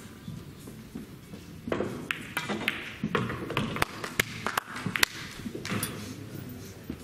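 Pool balls clicking on a table: the cue striking the cue ball, then a quick string of sharp ball-on-ball clicks from about two seconds in until about six seconds in, the loudest about five seconds in.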